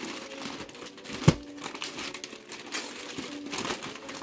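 Shiny metallic gift-wrapping paper crinkling and rustling as a large present is torn open, with a single sharp thump about a second in.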